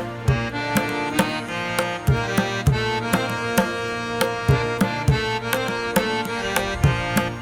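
Instrumental music with a percussive beat: sharp drum strokes two or three times a second over sustained melodic notes.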